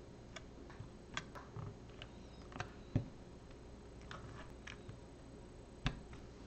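Small plastic clicks and taps as LEGO bricks are handled and pressed onto a baseplate. Two sharper knocks come about three seconds in and near the end.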